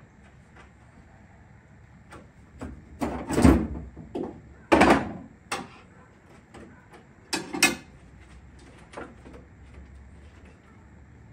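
Knocks and clatter of hand tools and small fittings being handled on the floor of a Jeep's rear tub, as washers and nuts go onto the fuel cell's bulkhead fittings. The loudest knocks come about three to five seconds in and again near seven and a half seconds, with light clicks between.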